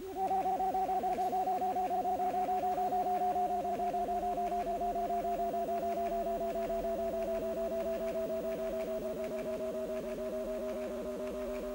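Electronic drone of several held tones played back from a cassette sound installation, pulsing fast and evenly. A higher tone cuts in just after the start and slowly slides down in pitch while the lower tones hold steady.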